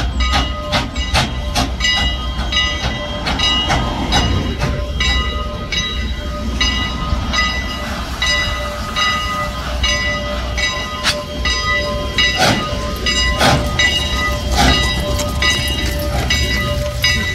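Steam locomotive No. 89's bell ringing steadily, about two strokes a second, as the engine moves slowly. A low rumble from the locomotive runs underneath.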